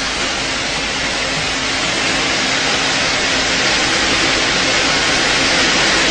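Steady loud rushing hiss with a faint low hum under it, slowly growing a little louder.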